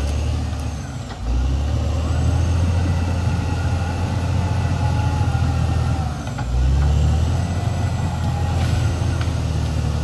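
Caterpillar D6R XL bulldozer's diesel engine running under load as the dozer works the earth. The engine note dips briefly about a second in and again after about six seconds, then picks up louder each time.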